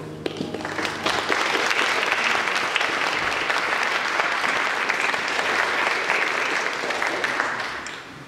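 Small audience applauding. The clapping builds up within the first second, holds steady, and dies away near the end.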